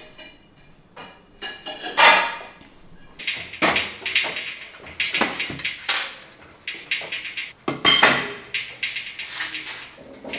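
A run of irregular knocks and clatters, hard objects being handled and set down, starting about two seconds in.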